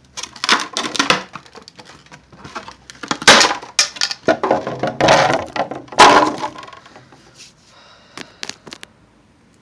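A sledgehammer smashing a plastic drawer: several heavy blows, the three loudest in the middle, each with cracking and crunching of the plastic, then light clatter of broken pieces.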